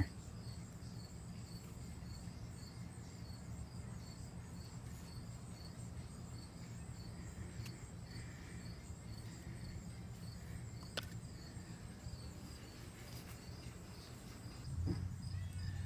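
Crickets chirping steadily and faintly over a low background hum, with a couple of light clicks around the middle.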